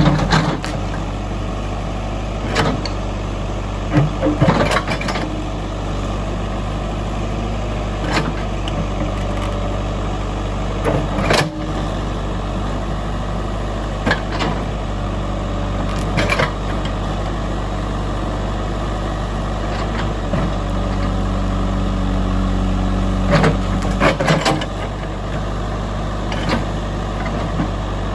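JCB 3DX backhoe loader's diesel engine running steadily, with sharp knocks and clanks from the machine's work scattered through it, the loudest about eleven seconds in.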